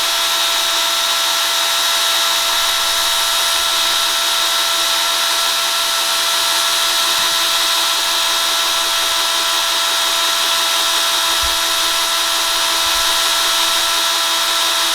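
Handheld power drill running at a steady high speed with a constant whine, working a stripped case bolt loose.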